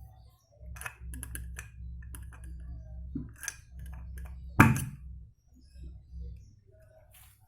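Metal clinks and taps of tools and parts during scooter CVT work, with one loud knock about four and a half seconds in, over a low steady hum.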